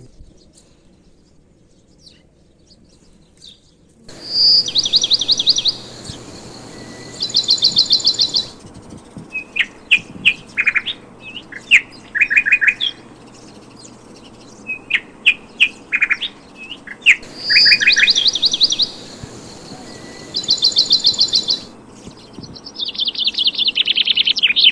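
Small birds chirping, with fast high trills and shorter chirps repeating over a steady background hiss, beginning about four seconds in.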